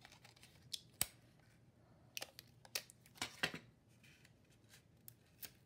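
Faint handling sounds of taping a paper funnel: clear tape handled on a plastic desktop dispenser and pressed onto construction paper, with a sharp click about a second in and a run of rustles and ticks in the middle.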